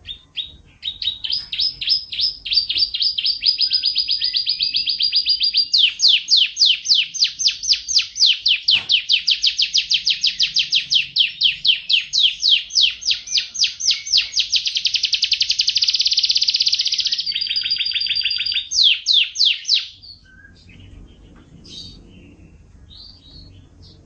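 Domestic canary singing one long, unbroken song of rapid trills. It switches to a new, faster trill several times before stopping about 20 seconds in, after which only a few soft chirps are heard.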